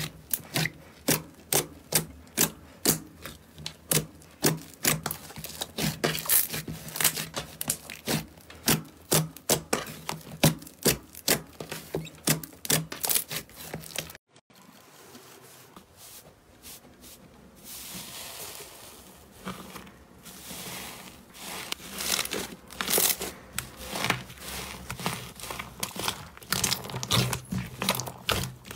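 Slime being squeezed and pressed by hand, making rapid crackling and popping clicks. About halfway through it cuts to another slime clip with softer, denser crackling.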